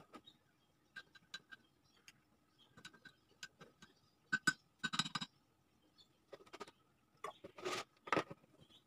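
A small plastic scoop stirring coffee in a ceramic mug, tapping and clicking against the sides in irregular bursts, with a few heavier knocks near the end.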